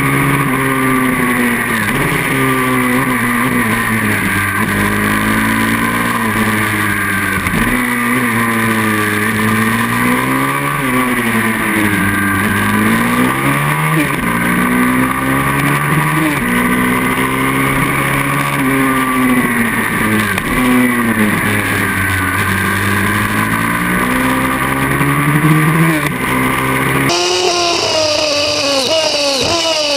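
Onboard sound of a racing pit bike's small single-cylinder engine revving hard, its pitch rising and falling over and over as it accelerates out of corners and backs off into them. About 27 seconds in, the sound changes abruptly: the low end drops away and a higher, wavering engine note takes over.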